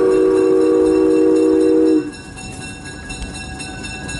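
Virginia & Truckee Railroad locomotive sounding a long three-note chord on its whistle, which cuts off sharply about two seconds in. After that the train keeps rolling with a steady rumble and rattle.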